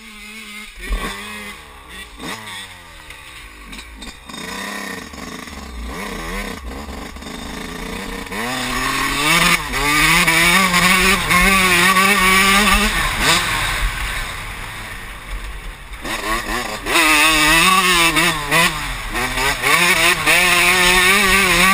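Motocross bike engine heard from onboard, quieter at first, then revving up in steps through the gears, easing off for a few seconds about two thirds through and pulling hard again.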